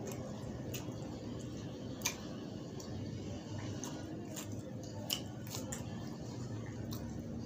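Hands tearing a thin, crisp roti, giving small crackles and a few sharp clicks, the clearest about two and five seconds in, over a steady low background hum.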